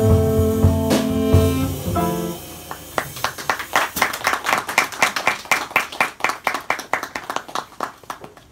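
A jazz combo's held final chord on saxophone, trombone and double bass, cut off about two seconds in, then a small audience clapping, the claps thinning out toward the end.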